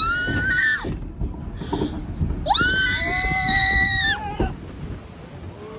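Riders screaming on a splash-boat water ride as the boat runs down the chute: a short scream at the start, then a longer held scream of about two seconds. Underneath is the steady rush of water.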